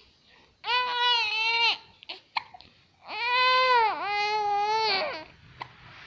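A baby grumbling in two long, whining cries, one of about a second and one of about two seconds, each holding a steady pitch and dropping at the end.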